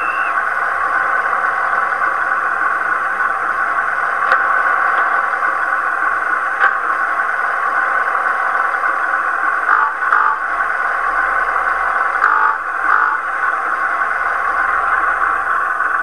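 Recorded diesel engine idling sound of a Class 108 DMU, played by a Howes DCC sound chip through an OO-gauge model's small speaker. A steady, tinny hum, with a few faint clicks and brief swells partway through.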